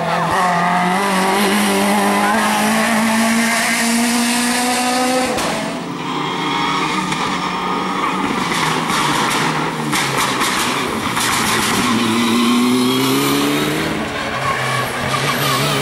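Hill-climb race car engines revving hard through a hairpin, pitch climbing and dropping with throttle and gear changes, one car after another. A run of sharp crackles sounds near the middle.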